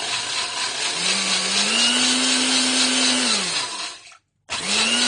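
Glen GL-4045BG mini blender's motor whirring in pulse mode, spinning about 100 ml of water in its 500 ml jar. Its hum rises in pitch about a second in and sinks again; about four seconds in the motor cuts out as the pulse button is let go, then starts again half a second later.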